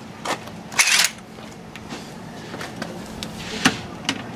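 A few short, sharp clinks and knocks of hard objects being handled, with a louder brief clatter about a second in.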